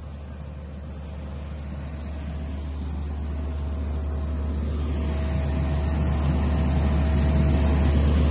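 Steady low drone of aircraft or ground-support engines on an airport apron, with a faint steady whine, growing gradually louder.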